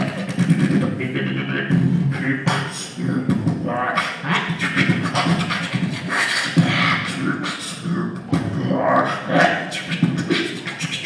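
A cappella vocal percussion (beatboxing): mouth-made kick, snare and hi-hat sounds in a fast, dense rhythm, with low pitched hums running under them.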